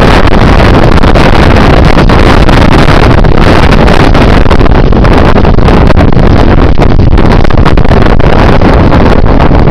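Strong wind buffeting the microphone, very loud and steady, drowning out the farm machinery.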